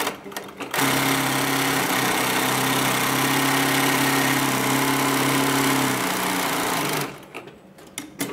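9518 heavy-duty walking-foot zigzag industrial sewing machine running at speed, stitching a zigzag seam through heavy cloth. It starts about a second in, runs steadily for about six seconds, then stops, with a few short clicks before and after.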